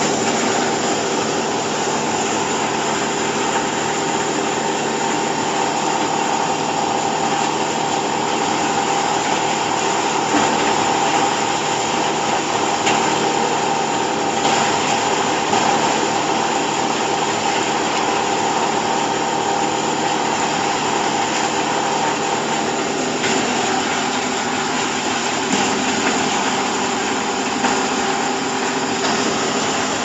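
Hydraulic silage press baler running: its electric motor and hydraulic pump hum steadily, with a slight shift in the hum about three-quarters of the way through.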